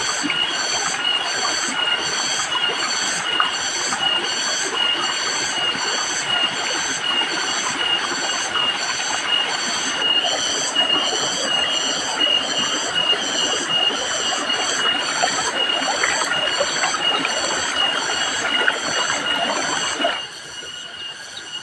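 Cicadas singing in the forest: a loud, high-pitched drone that pulses about twice a second, then cuts off suddenly near the end.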